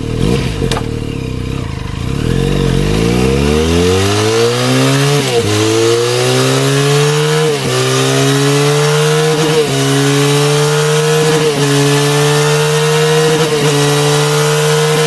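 Benelli Leoncino 500's parallel-twin engine breathing through a LeoVince LV 10 slip-on silencer, revving. The revs climb over about four seconds, then hold high with brief dips about every two seconds.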